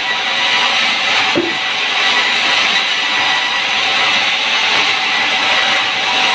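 Sawmill machinery running: a loud, even noise with a high steady whine, and a short lower sound about a second and a half in.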